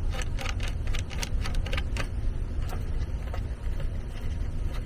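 Small hard plastic clicks and taps from handling a backup-camera monitor's mirror-mount bracket while its elastic bands are fitted. There is a quick cluster of clicks in the first two seconds and a few more later, over a steady low rumble.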